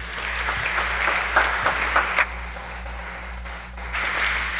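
Congregation applauding to welcome a speaker: a crowd of hands clapping, thinning out about halfway through and picking up again near the end.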